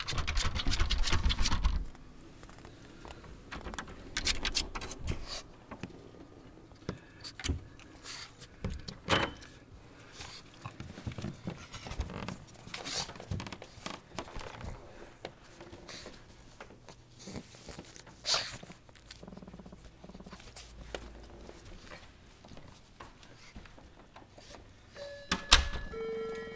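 A pug moving about on carpet, with scattered jingling and sharp clicks and a loud rattle in the first two seconds. About a second before the end, an electric back-door buzzer starts ringing with a steady tone.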